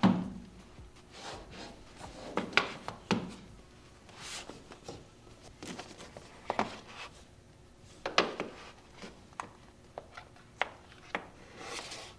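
Cardboard Google Pixel 6 packaging being handled on a desk: the box and paper inserts sliding and rubbing, with sharp taps as pieces are set down, in a string of short scrapes and clicks at irregular intervals.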